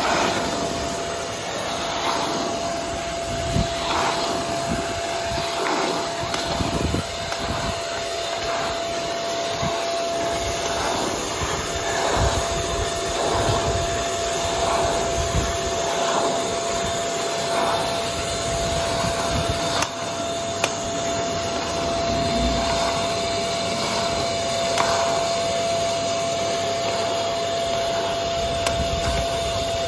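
Carpet extractor's suction motor running steadily with a constant whine as its wand sucks water out of a shag rug, the suction swelling in a swish about once a second with the wand strokes.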